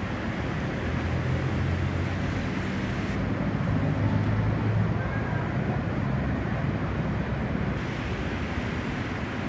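Airbus A320neo airliner with Pratt & Whitney PW1100G geared turbofan engines passing overhead: a steady, low jet rumble with a wash of noise above it, swelling slightly about four seconds in.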